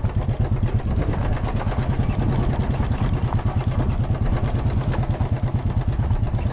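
Motorcycle engine running steadily while riding along a rough road, with a rapid low pulsing throughout.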